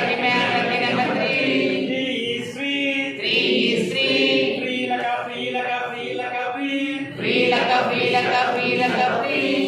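Voices singing and chanting an action song together, with held notes broken into short sung syllables.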